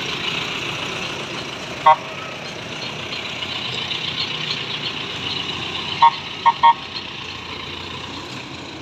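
Tow truck running as it tows a wrecked car, with a vehicle horn tooting: one short toot about two seconds in, then three quick toots about six seconds in.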